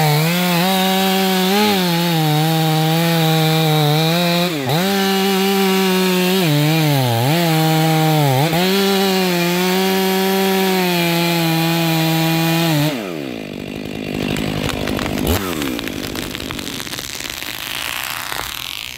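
Stihl MS500i fuel-injected two-stroke chainsaw running at full throttle through the felling cut in a western hemlock trunk, its pitch dipping briefly several times as the chain bogs in the wood. About two-thirds of the way in the revs fall away, and a rougher, quieter noise follows.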